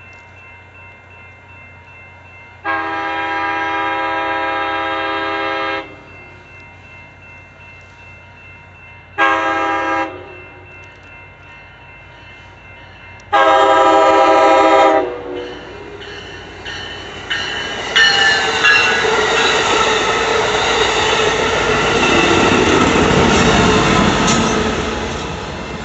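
Amtrak ALC-42 locomotive horn sounding three blasts, long, short, long, then the passenger train going by with its noise swelling and wheels clattering over the rail joints.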